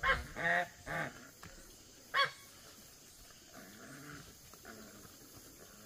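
Domestic geese honking: a quick run of three loud calls at the start, a single loud call about two seconds in, then softer, lower calls.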